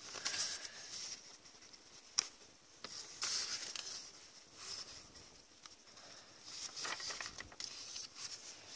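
Paper rustling as journal pages are turned and handled, in three bouts, with a single sharp click about two seconds in.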